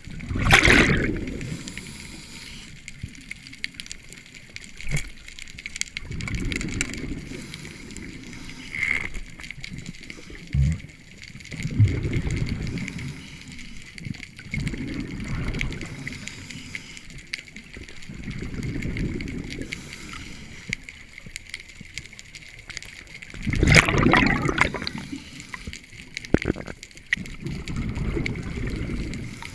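Scuba diver breathing through a regulator underwater: exhaled bubbles gurgle in low swells every few seconds, with two louder bubble bursts, one near the start and one about 24 seconds in.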